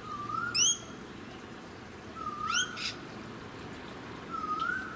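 Birds calling: a short whistle that rises and falls, repeated three times about two seconds apart. Twice a sharp rising squeak cuts in, the loudest about half a second in and another near three seconds.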